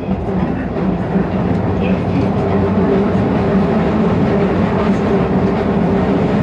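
Keisei 3000-series electric train running at speed, heard inside the car: wheels rumbling on the rails under a steady whine from the traction motors and gears. It grows louder over the first second or two, then holds steady.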